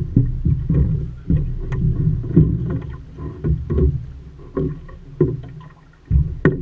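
Water slapping and splashing against the hull of a small Optimist sailing dinghy in irregular low pulses about twice a second, with a few sharp knocks.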